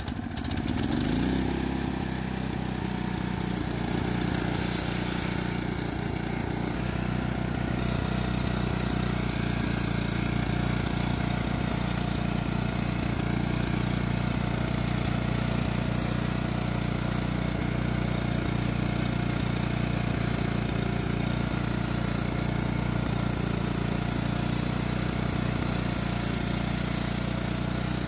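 Lawn tractor's Enduro overhead-valve engine revving up with a rising pitch right at the start, then running steadily at full throttle as the tractor drives and plows snow.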